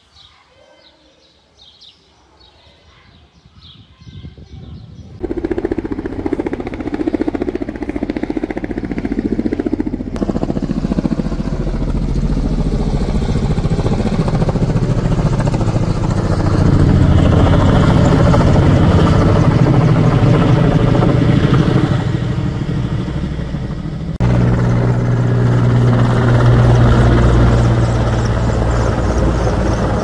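Firefighting helicopter with a water bucket slung beneath it, flying low overhead: steady rotor and engine noise that comes in loud about five seconds in after a quieter start.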